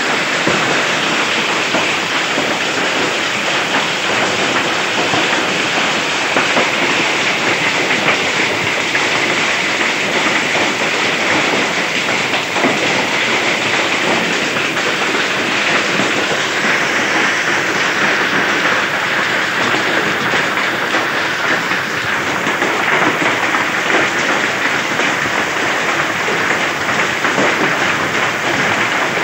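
Heavy rain mixed with hail pelting down in a storm: a dense, steady hiss of countless small hits.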